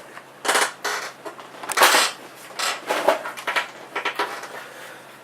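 Packaging of a new iPhone handled as the phone is taken out of its box: several short rustles and scrapes of cardboard and plastic, with quieter handling noise between them.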